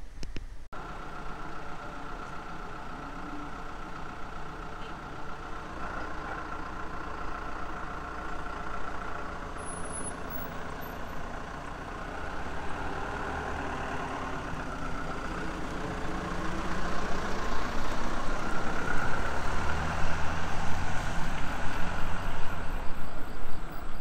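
Minibus engine idling, then pulling away, getting louder over the last several seconds.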